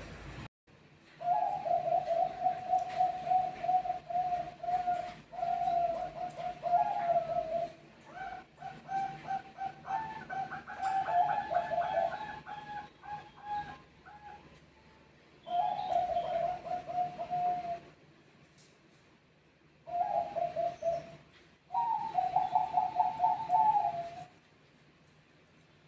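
Zebra doves (Bangkok perkutut) cooing: rapid, pulsed trilling phrases repeated over and over, with two birds calling over each other for a stretch in the middle. The song breaks off about 18 seconds in, resumes in two short phrases, then stops near the end.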